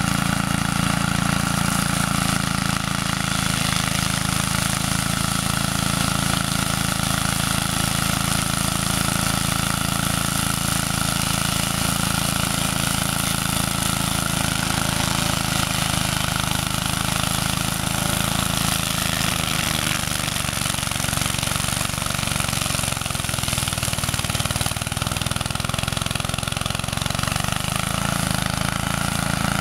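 KAAZ LZ600 walk-behind weed mower's engine running steadily as it cuts through tall grass and weeds, its pitch dipping slightly for a few seconds past the middle.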